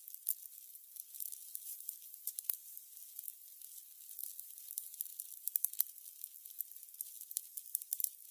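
Burning candles crackling: a steady high hiss with irregular sharp pops, a few louder ones about two and a half seconds in and again a little before the six-second mark.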